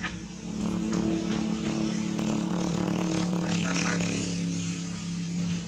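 A small engine running steadily: an even, low hum that holds at one pitch.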